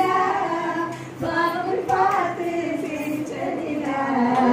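Female singing voice carrying a melody in long held notes, with a brief break about a second in.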